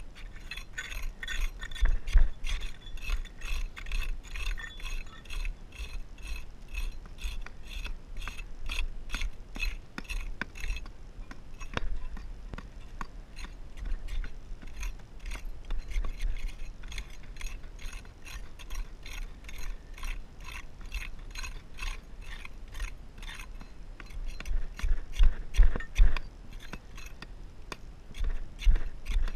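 Trowel scraping through soil in quick, even repeated strokes, about three a second, with a few heavier knocks near the end.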